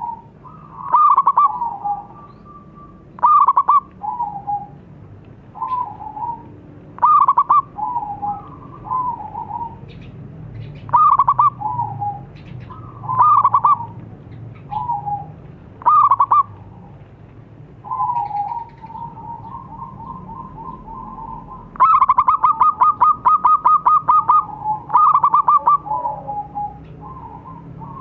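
Zebra dove (perkutut) cooing: a loud phrase roughly every two seconds, each a quick rattle of notes followed by lower, softer coos, with fainter coos in between. About two-thirds of the way in comes a longer fast rattle.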